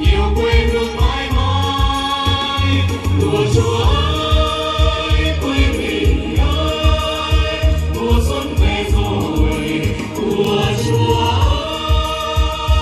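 Upbeat song with singing in long held notes over a steady, heavy beat, accompanying a stage dance.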